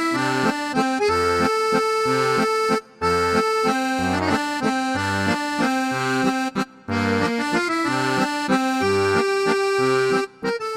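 Background accordion music: a tune over a steady alternating bass-and-chord accompaniment, breaking off briefly twice.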